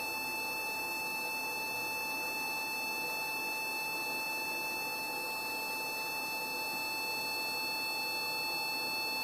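A veterinary surgical laser's emission tone: one steady electronic beep held without a break while the laser fires during tumour excision, over a steady hiss.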